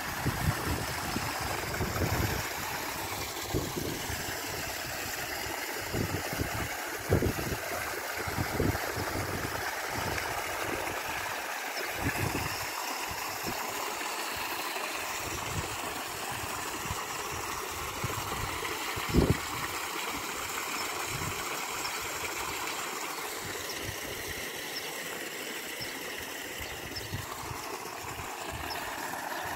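Water pouring from spouts in a stone wall and splashing steadily into a swimming pool. Occasional short low thumps, the loudest about two-thirds of the way through.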